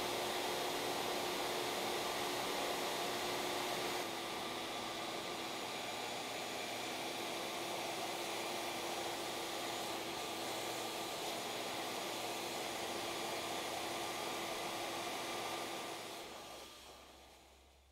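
Shaper Origin handheld CNC router running steadily as it carves into red oak, a steady whine over a hiss, its pitch dropping slightly about four seconds in. Near the end it winds down and goes quiet.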